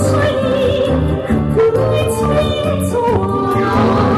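Music: a woman singing a melody with wide vibrato over a band accompaniment with a steady beat.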